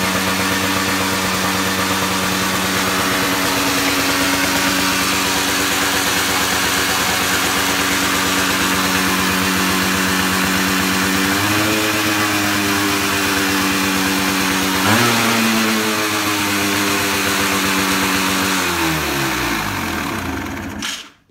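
Sachs XTC125's 125 cc single-cylinder motorcycle engine running at a steady idle, its revs raised about halfway through and blipped higher a few seconds later. It then slows and stops just before the end.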